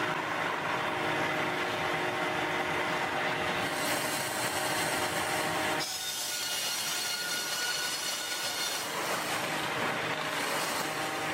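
Sawmill saw cutting through timber: a steady mechanical noise with ringing tones. The tone shifts about six seconds in.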